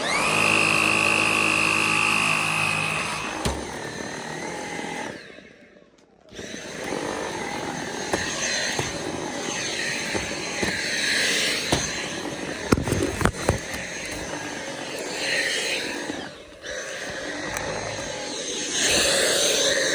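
Dyson V7 Absolute cordless stick vacuum running with a high whine, its motorised brush-bar head sounding like an electric knife. It stops briefly about five seconds in, then starts again and runs with a rougher, changing sound and scattered sharp clicks as it picks up debris, getting louder near the end; the vacuum is being run without its filter.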